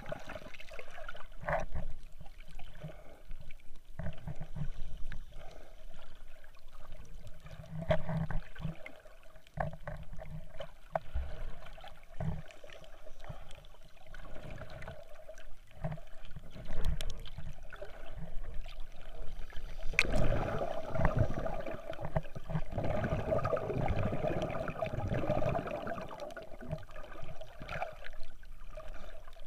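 Water sloshing and gurgling around a submerged action camera, with scattered knocks, louder and busier about two-thirds of the way through.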